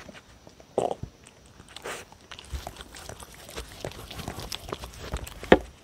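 Dogs eating close to a microphone: irregular chewing and crunching with scattered clicks and knocks, a sharp one about a second in and the loudest near the end.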